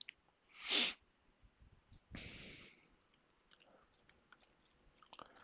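A short, sharp sniff close to the microphone about a second in, then a softer breath about a second later, with faint scattered clicks from computer keys or a mouse.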